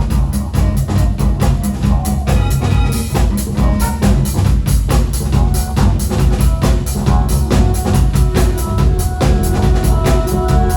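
Rock band playing live without vocals: a drum kit keeps a busy, steady beat over heavy bass, and sustained held tones come in about seven seconds in.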